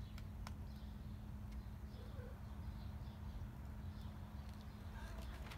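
Quiet ambience: a steady low hum, with faint bird chirps now and then and a few soft clicks.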